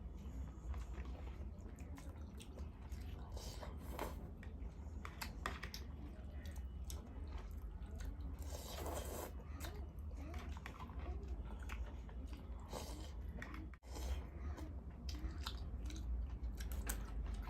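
Close-miked eating: a person chewing food with frequent wet clicks and smacks of the mouth, over a steady low hum.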